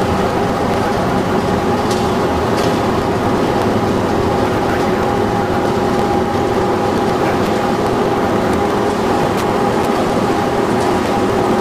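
Machinery of a fly ash and sand-lime brick production line running: a loud, steady mechanical din with a constant hum and a higher steady tone, and a few faint clicks.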